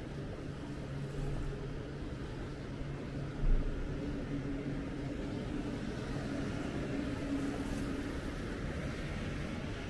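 Outdoor shopping-street ambience: a steady background hum with a low drone that steps up in pitch about four seconds in, and a single dull thump about three and a half seconds in.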